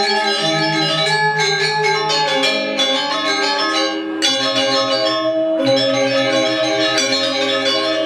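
Balinese gamelan music: bronze metallophones play a bell-like melody of overlapping ringing notes, the low notes changing about every half second to a second.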